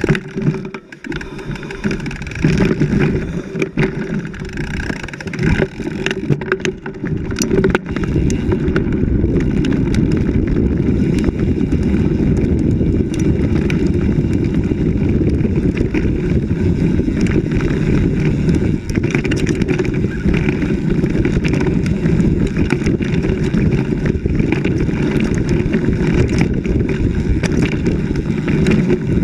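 Loud, continuous ride noise from a camera mounted on the handlebars of a bike going fast over a rough dirt trail: wind buffeting and rumble, with scattered knocks and jolts in the first eight seconds or so, then a steady rush.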